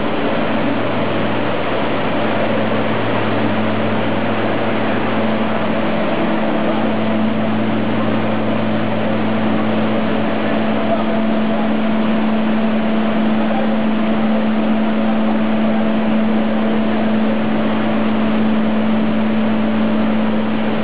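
A small rice mill plant running: milling machines, bucket elevators and their electric motors make a steady, loud mechanical whirr with a constant low hum underneath, while grain moves through the chutes.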